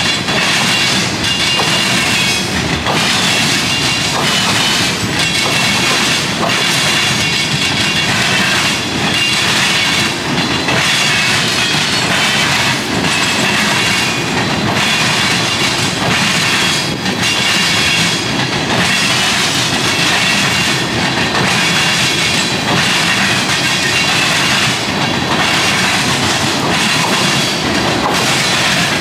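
CN freight train's tank cars and boxcars rolling through a railroad junction, steel wheels banging over the crossing diamonds in an uneven clickety-clack, with a thin high wheel squeal at times.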